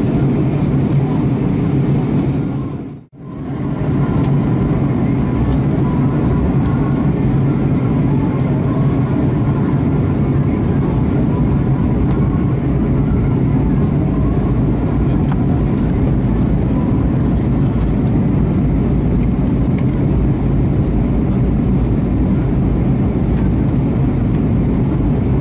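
Steady low cabin noise of an Airbus A320 in flight, engine and airflow noise heard from a window seat. It fades out briefly about three seconds in and comes straight back.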